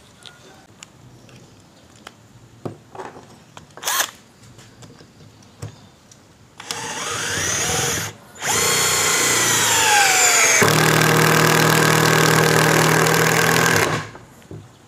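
INGCO CIRLI1201 12 V cordless impact driver driving a hex-head roofing screw into mahogany without a pilot hole, after a few light clicks and a tap as the socket is set on the screw. The motor whines up, stops briefly, then runs again with its pitch sagging under load. About ten seconds in, the impact mechanism starts hammering steadily for about three seconds, then stops as the screw seats.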